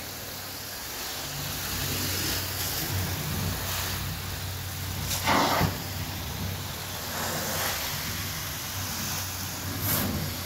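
Carpet extraction wand drawing hot-water rinse across carpet: a steady vacuum hum and hiss, with short louder rushes about five seconds in and again near the end.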